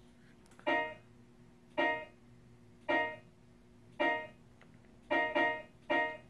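Background music: a keyboard chord struck about once a second, with a quick pair of strikes near the end, each fading quickly, over a faint low steady hum.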